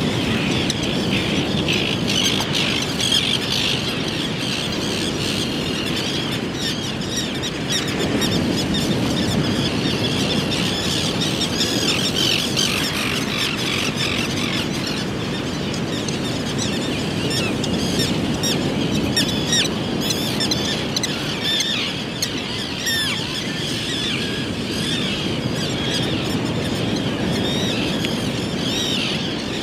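Terns calling: a dense stream of short, high, squeaky chirps and squeals, over a steady low background rush.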